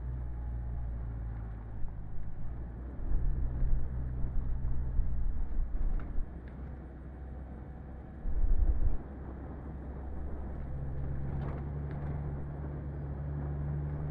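Daihatsu Feroza 4x4 driving slowly on a dirt road and over a timber bridge: a steady low engine hum with irregular low rumbles and knocks from the ride, and a heavier low rumble about eight seconds in.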